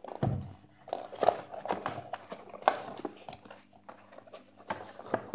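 Cardboard box of a Bluetooth speaker being handled and opened: irregular taps, knocks and scrapes of cardboard against the tabletop, with rustling as the flap is pulled open.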